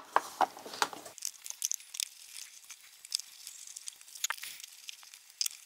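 Handling noise: scattered light clicks and scrapes of a small plastic electronics case being pressed together by hand.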